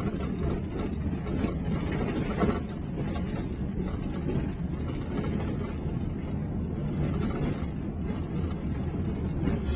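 Road noise heard inside the cabin of a BMW X3 driving on a rough dirt track: a steady rumble of engine and tyres on the unpaved surface, with occasional knocks from bumps.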